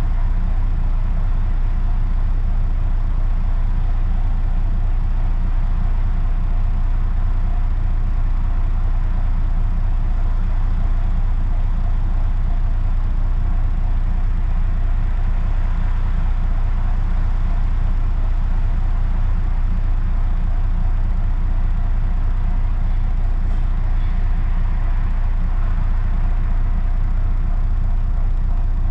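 A London bus's engine idling steadily with a constant low rumble while the bus stands still.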